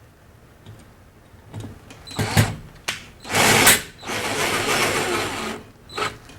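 Power driver and metal mounting bracket at work as the bracket is screwed to the recessed light converter plate: a few short knocks and bursts, then a run of mechanical whirring lasting about a second and a half.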